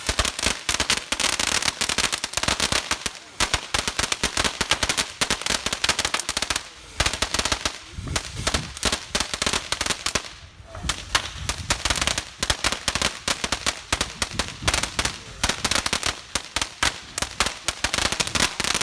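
Consumer fireworks going off in a long, rapid barrage of pops and bangs, close together like machine-gun fire, with a short lull about ten seconds in.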